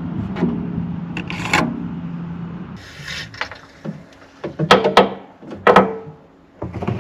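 A low steady hum for the first few seconds, then a fuel pump nozzle clicks and knocks against plastic jerry cans as they are filled with petrol, several sharp knocks in quick succession.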